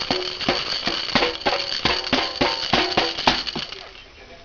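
A little girl banging and shaking a jingling toy: quick knocks, about three or four a second, with a metallic jingle ringing over them, stopping shortly before the end.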